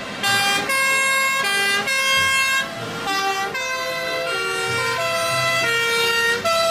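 Two-tone sirens of several fire engines on call, each a steady note switching back and forth between a high and a low pitch, the horns overlapping out of step with one another.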